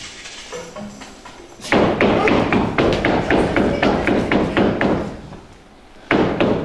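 Rapid, regular thumping knocks, about three or four a second, starting just under two seconds in. They fade out about a second before the end, then start again near the end.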